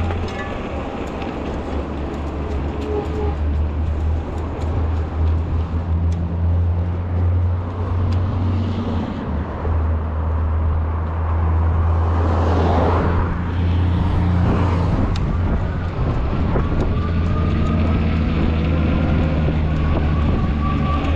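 Road traffic heard from a moving fat-tire e-bike: a steady low rumble throughout, with a vehicle passing about halfway through, rising and then fading. Faint tones climb slowly in pitch near the end.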